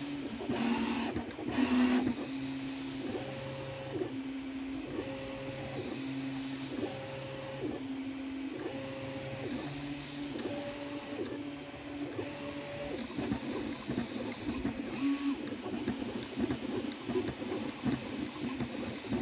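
Original Prusa Mini 3D printer printing, its stepper motors whining in stepped tones as the print head moves, the pitch switching between a lower and a higher note about once a second. About a second in there is a brief louder buzz, and from about two-thirds of the way through the tones break into a fast, irregular stutter of short moves.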